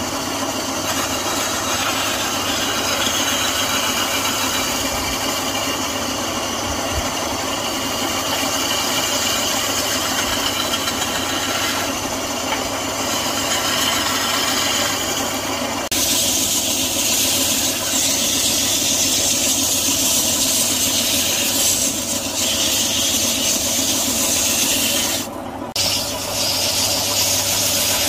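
Wood lathe running with a turning chisel cutting into a large spinning wooden blank: a steady scraping noise over a low motor hum. About sixteen seconds in the sound changes suddenly to a brighter, steady hiss as the spinning wood is sanded by hand.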